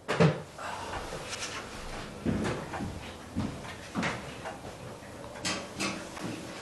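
A series of irregular knocks and bumps, the loudest right at the start, with others every second or so.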